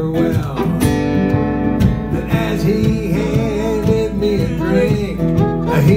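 Acoustic string trio playing an instrumental passage between sung lines of a country-style song: acoustic guitar and mandolin plucked, with fiddle.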